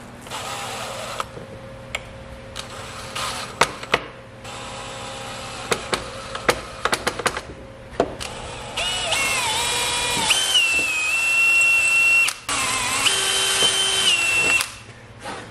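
Cordless drill running into a panel in two long runs near the end, about six seconds in all with a short break, its whine stepping up and down in pitch. Before that come a few short knocks and clicks.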